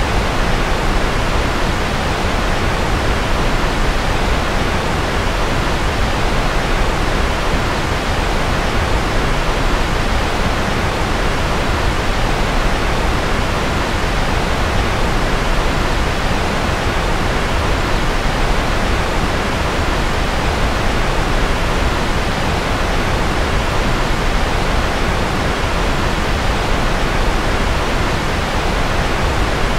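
Steady generated white noise: an even, unchanging rushing hiss with a softer top end.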